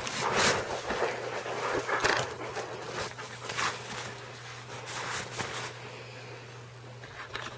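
A puppy and a cat play-wrestling: irregular bursts of scuffling and rustling against a nylon play tent, with the puppy snuffling at the cat, over a steady low hum.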